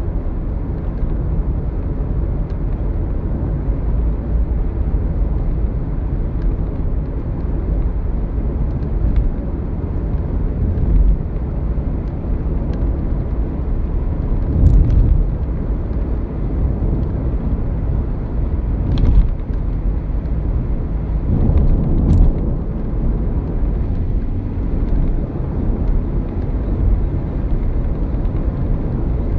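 Steady low rumble of a car at highway speed, heard from inside the cabin: tyre and engine noise. A few brief clicks and louder swells come through around the middle.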